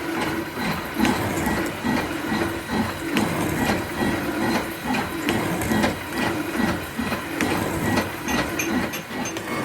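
A workshop machine running with a regular rhythm of about two strokes a second, with clicks over a faint steady high tone.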